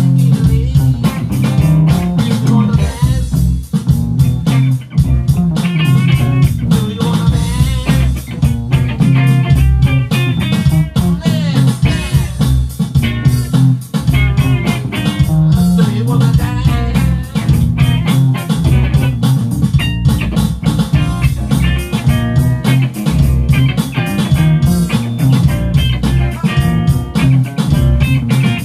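Live band playing: electric guitar over bass guitar and a drum kit, with steady, dense drum hits.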